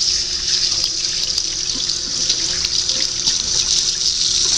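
Kitchen faucet running steadily into a sink while a bowl is rinsed out under it.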